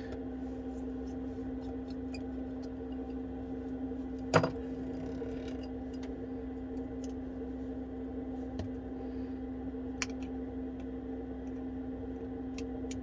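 Light clicks and taps of small metal repair tools on an iPhone 12's internals, scattered and sparse, the sharpest about four seconds in, over a steady electrical hum.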